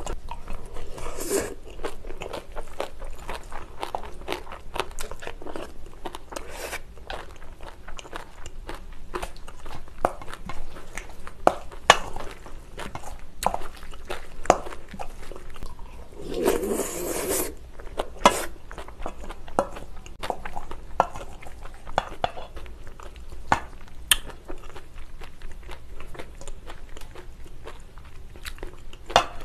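Close-miked eating of bibimbap: steady chewing with many small crunchy bites and clicks, and one louder, noisier stretch of about a second just past the middle.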